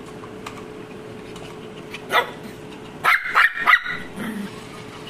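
Shih-poo puppy barking: a single short bark about two seconds in, then four quick high barks in under a second.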